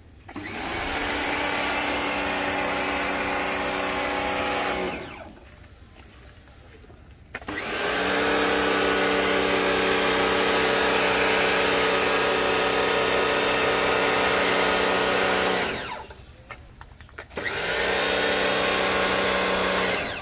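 Pressure washer's motor and pump running with a hiss of spray from a foam cannon laying soap foam on a car, in three runs. The hum starts and stops with the gun's trigger, cutting out about five seconds in and again near sixteen seconds.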